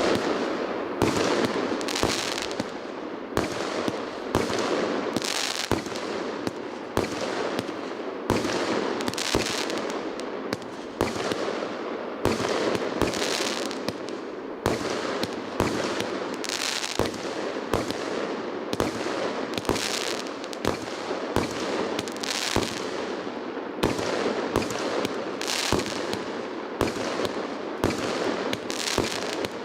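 Fireworks going off in quick succession, a steady run of bangs, each trailing off into a hissing crackle.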